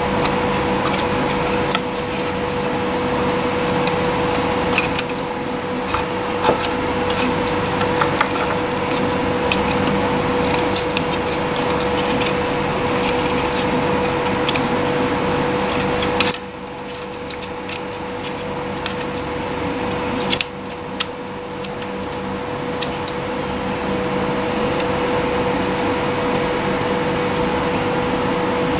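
Hands pushing and turning a tape-wrapped electric ducted fan unit into a 3D-printed plastic ring: rubbing and scraping with scattered light clicks, over a steady background hum.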